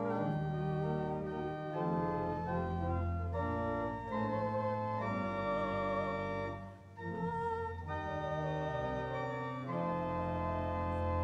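Church organ playing a hymn in sustained chords that change every second or so, with a brief break about seven seconds in.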